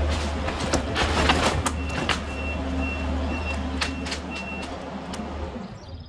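Kubota SVL65-2 compact track loader's diesel engine running steadily, with a cluster of sharp knocks and crackles about a second in. From about two seconds in, a high backup alarm beeps about twice a second.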